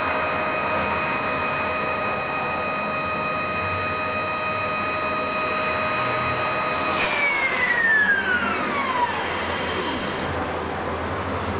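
Stepper motor driving the RA axis of an APSh-4 telescope mount at 1000x, a steady high whine that about seven seconds in falls in pitch over two seconds or so as the motor slows to a stop.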